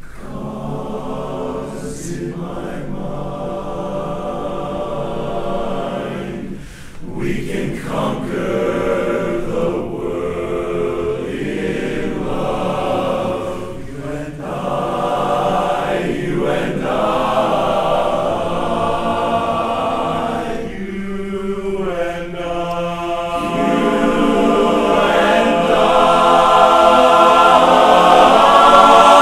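A men's barbershop chorus singing a cappella in close four-part harmony, swelling louder near the end.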